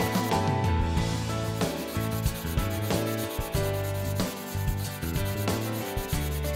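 Graphite pencil hatching on drawing paper, a run of scratchy back-and-forth strokes, heard over background music.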